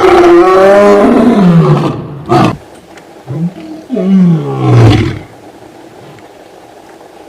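Lion roaring: a long roar falling in pitch, then a series of shorter grunting roars, each sliding down, ending about five seconds in.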